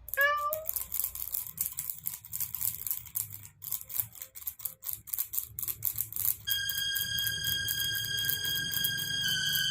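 A kitten meows once, briefly, followed by a run of quick dry clicks and taps. About two-thirds of the way through, a steady high electronic tone comes in and holds.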